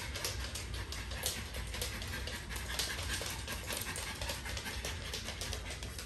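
Small dog panting quickly and evenly, worn out from the heat.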